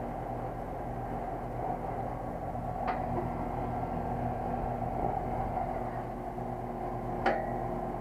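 Steady electrical hum and whir from a heat pump outdoor unit, with cloth rubbing on its sheet-metal top and two sharp clicks, about three and seven seconds in.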